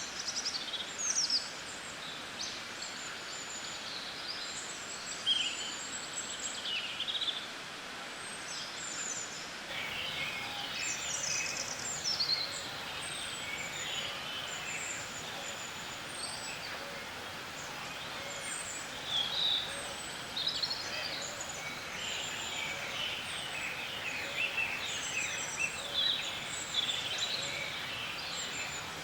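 Several birds chirping and singing in a dense chorus of short, quick calls and trills over a steady background hiss, growing busier about a third of the way in.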